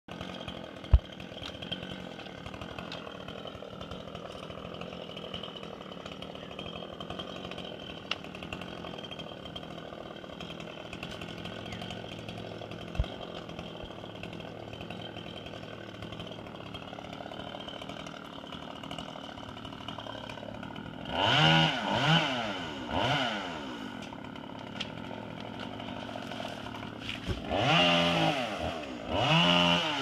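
Chainsaw up in the tree idling steadily, then revved in several short bursts from about two-thirds of the way through, the pitch climbing and falling with each burst. A sharp click about a second in.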